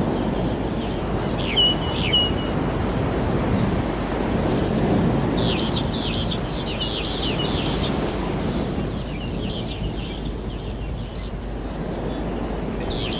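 Seaside ambience: a steady wash of waves with small birds chirping in quick runs, busiest from about five to eight seconds in and again near the end.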